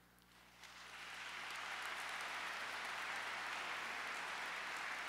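Audience applauding, starting about half a second in, building over the next second and then holding steady.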